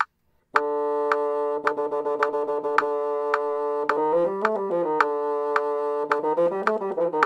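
A metronome ticking at 108 bpm under a single pitched instrument holding a long note, which twice breaks into a quick run of notes stepping up and back down a five-note scale fragment before returning to the held note.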